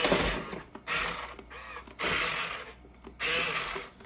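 Top Race TR-212 RC dump truck's electric motor and gearbox whirring in repeated short bursts, about one a second, as the throttle is blipped.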